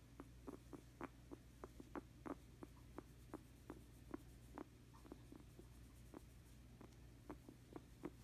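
Guinea pig making a rapid, irregular series of soft pops and clicks, about three a second, thinning out for a couple of seconds near the middle, a sound likened to mini-fireworks and snuffling. The owner worries this noise may mean she is sick.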